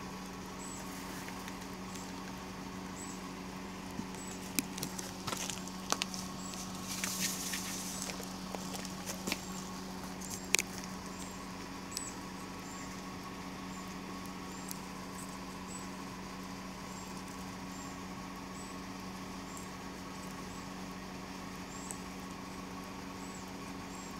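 Handling noise of cat food and a paper sheet being set down on asphalt: a cluster of clicks and rustles in the first half, with one sharp click the loudest. Under it runs a steady low hum, and a faint high chirp repeats about once a second.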